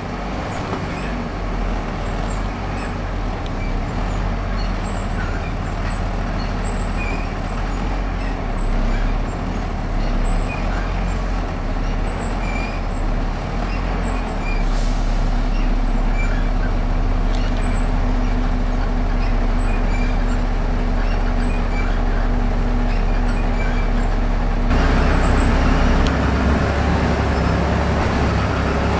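Volvo B7RLE bus's rear-mounted diesel engine running under way, heard from the rear seats of the passenger saloon, with light interior rattles. About 25 seconds in, the engine note changes and gets louder.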